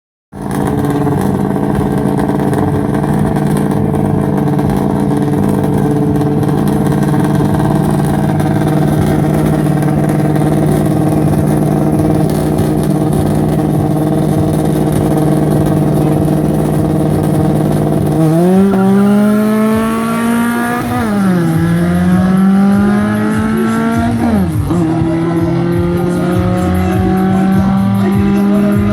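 Drag-race car engine held at steady high revs on the line. About eighteen seconds in it launches and the pitch climbs, drops at a gear change about three seconds later, climbs again and drops at a second shift, then pulls on steadily.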